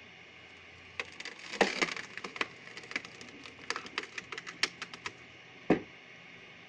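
Wood cracking and splintering: a dense run of irregular sharp cracks for about four seconds, then one loud crack near the end, over a faint steady hum.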